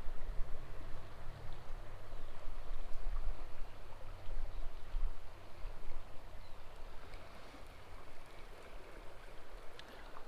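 Small trout stream's water running steadily, with a low rumble on the microphone over the first half that then eases.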